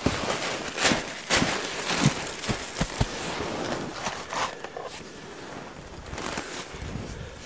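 Footsteps crunching through deep snow, an uneven series of short crunches roughly one or two a second.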